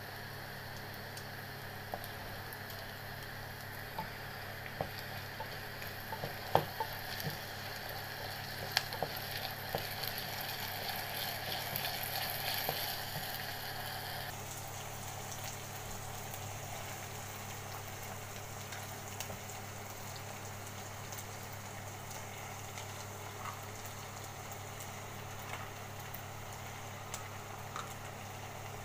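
Chopped onions and ginger-garlic paste sizzling in oil in a clay pot, with sharp clicks and knocks of a wooden spoon against the pot during the first half as they are stirred. A steady low hum runs underneath, and the sizzle changes abruptly about halfway through.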